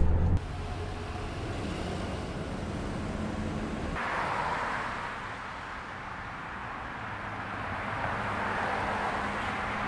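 Street traffic at a bus stop: a low engine hum, then at about four seconds a louder rushing of passing vehicles that swells and fades twice.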